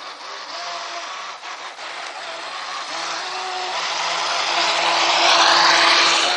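Radio-controlled speedboat running fast across the water: the whine of its motor and the hiss of its hull and spray grow steadily louder as it closes in, loudest about five seconds in as it passes close by.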